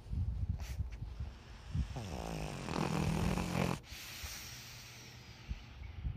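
Flat-faced Pekingese sighing: about two seconds in, a pitched sound from the dog dips and then holds for nearly two seconds before cutting off, followed by a long breathy exhale.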